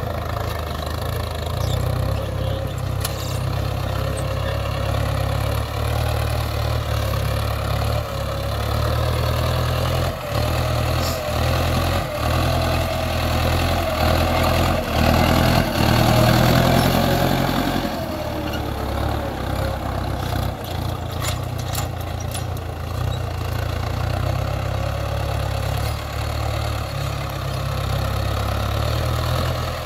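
Diesel engine of a Mahindra farm tractor running steadily as it pulls a tine cultivator through dry soil, loudest about halfway through as it comes close.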